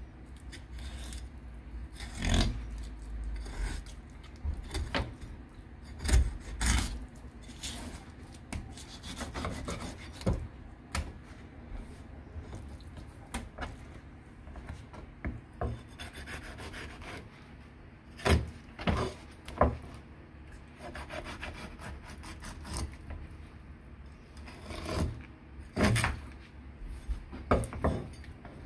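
Kitchen knife working a fish on a wooden cutting board: an irregular run of scraping, rasping strokes broken by sharper knocks of the blade on the board.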